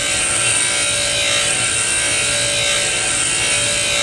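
DeWalt bench grinder's wheel grinding a high-speed steel lathe bit held flat against it, a steady high-pitched hiss over the motor's hum. This is the shaping of one side of a 60-degree threading tool.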